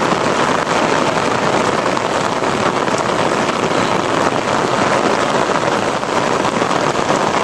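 Heavy rain pouring down on a concrete rooftop and street: a steady, even hiss.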